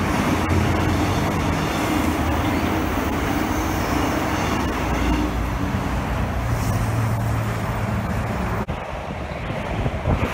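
Steady multi-lane freeway traffic noise, with a Transperth B-series electric train's motor hum as it passes below and fades out within the first few seconds. The sound drops out briefly and changes near the end.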